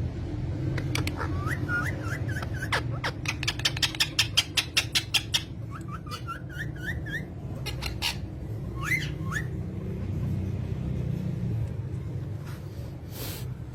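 Pet parrots chirping: runs of short, rising whistled notes, a few separate calls, and a fast series of sharp clicks about three seconds in, over a steady low hum.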